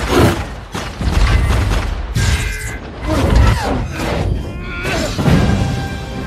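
Action-film battle sound effects: a run of heavy booms and impacts, roughly one a second, from a fight against robots, over a film music score.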